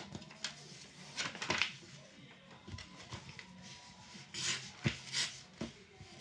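Sheet of origami paper being folded and creased flat by hand: scattered short rustles and light taps, busiest near the end.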